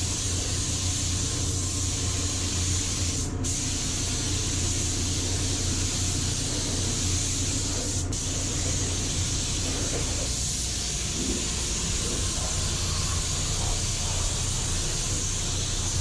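Gravity-feed automotive paint spray gun hissing steadily as it sprays paint into a car's engine bay, over a steady low hum.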